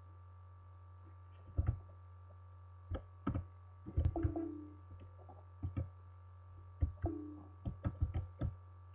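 Computer keyboard keystrokes: a dozen or so separate clicks at irregular spacing, over a steady low electrical hum.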